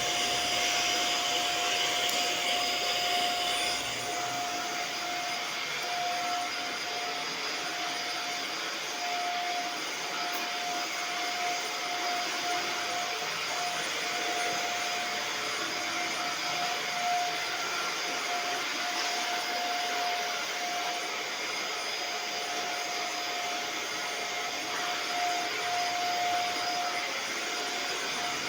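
Vacuum cleaner running steadily: a constant motor whine over a rushing air hiss, the hiss easing a little about four seconds in.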